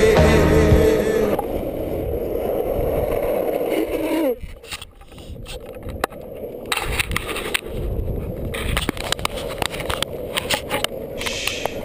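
Longboard wheels rolling on asphalt: a steady rumbling hiss, with a tone that falls in pitch about four seconds in as the rolling noise drops away, followed by scattered clicks and scuffs.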